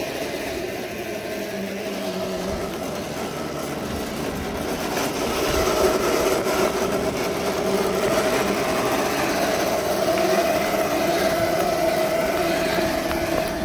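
Homemade 2000-watt, 48-volt electric go-kart driving along a tarmac lane: a steady motor and drivetrain whine over tyre and road noise, getting louder about five seconds in.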